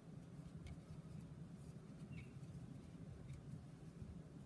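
Near silence: a steady low room hum, with a few faint ticks and scratches as a fine metal crochet hook works cotton thread.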